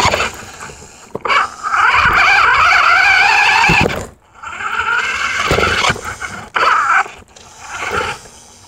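Small electric motor and plastic gearbox of a toy RC car whining in bursts as the throttle is worked, heard close up from the bumper, with the tyres scraping over pavement. The whine wavers in pitch and cuts out about four seconds in, then comes back in two short spurts.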